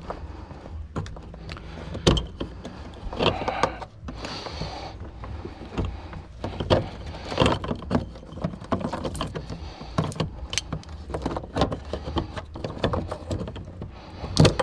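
Irregular metallic clicks, knocks and scraping as the fuel pump's lock ring is worked by hand and tool onto the fuel tank, with a sharp knock near the end. The ring keeps going on crooked and will not seat.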